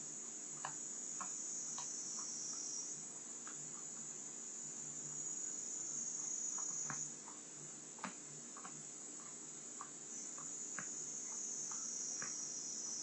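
A shrill, insect-like trilling that comes and goes in spells of a few seconds, with faint scattered clicks.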